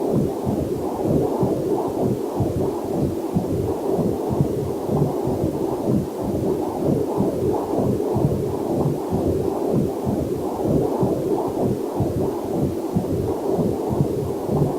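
Rapid, even whooshing pulses of a heartbeat picked up through a fetal Doppler monitor, about two to three beats a second. A faint waterfall hiss runs underneath.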